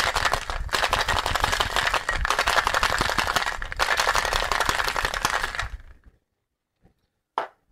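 Ice rattling fast and hard inside a stainless steel cocktail shaker being shaken. The shaking stops about six seconds in, and a short knock follows near the end.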